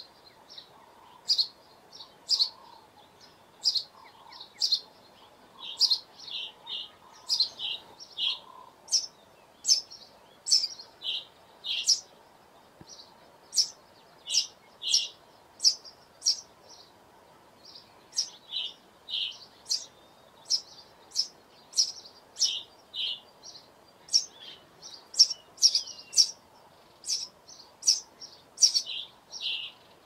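House sparrow chirping: a long run of short, sharp chirps, one or two a second, with a brief pause about halfway through.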